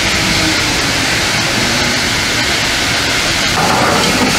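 Train locomotive running at a standstill: a loud, steady noise with no clear pitch, unbroken throughout.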